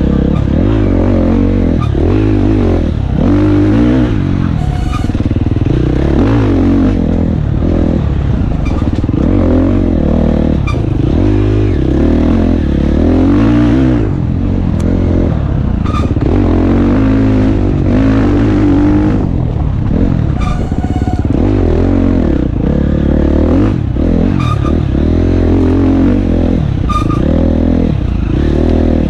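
Enduro dirt bike engine revving up and down without a break as the throttle is worked along the trail, with scattered knocks and clatter from the bike over the ground.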